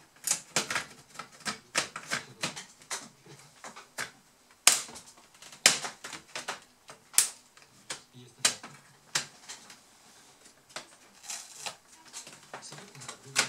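Plastic snap clips of a Dell Inspiron 15 3558's case clicking loose as the case halves are pried apart along the seam with a plastic pry tool. The clicks are sharp and irregular, with the loudest a few seconds in.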